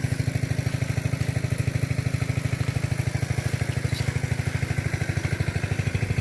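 Small engine running steadily with a fast, even chugging beat, about ten beats a second.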